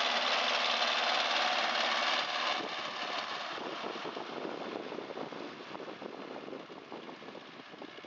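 Diesel engine of a wheeled tractor towing a beach-cleaning harrow through the sand, loud as it passes close, then fading steadily as it pulls away from about two and a half seconds in.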